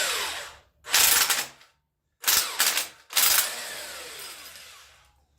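A handheld power tool spinning a bolt, run in four short bursts, the last one trailing off slowly.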